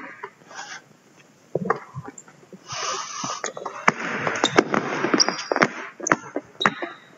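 Basketball dribbled hard on a gym floor, a rapid run of bounces starting about three seconds in, with the scuff of sneakers and a couple of short high sneaker squeaks near the end.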